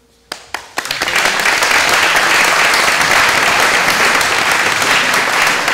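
A group of people applauding: a few single claps, then within about a second a dense round of steady clapping.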